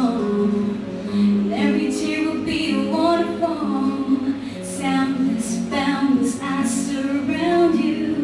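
A woman singing a slow pop song to her own acoustic guitar accompaniment.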